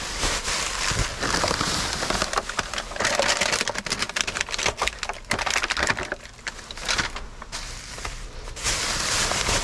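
Rummaging through discarded goods in a store dumpster: bags and packaging rustling and crackling as they are handled and pushed aside, with many small clicks and knocks.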